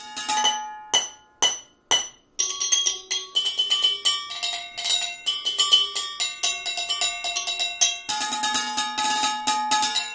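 Drumsticks striking an improvised percussion set of household metal objects, a frying pan, chalices and metal bowls, each ringing at its own pitch. Four separate strikes come first, then a fast rhythmic pattern across the pieces, with a different set of ringing tones taking over near the end.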